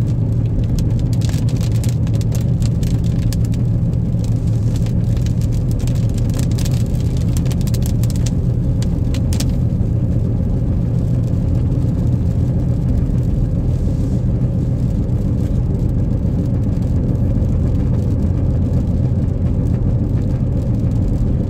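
Steady low drone of a car's engine and tyres on a wet highway, heard inside the moving car. Scattered light clicks sound over it during roughly the first half.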